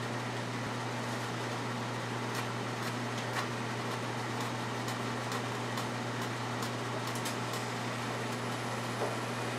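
Steady low hum in the workshop, with a scattering of light clicks and taps as an aluminium wing nose rib is handled and fitted against the wing structure.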